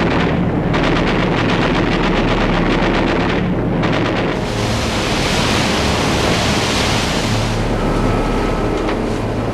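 Rushing sea and wind with a steady low drone underneath; the hiss swells louder for a few seconds in the middle.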